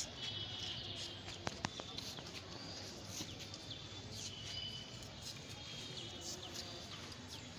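Birds chirping and calling from the trees over a faint outdoor background, with two sharp clicks about a second and a half in.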